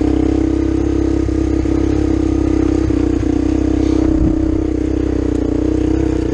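Kawasaki Bayou ATV's single-cylinder four-stroke engine running at a steady cruising speed while riding, with a brief low rumble about four seconds in.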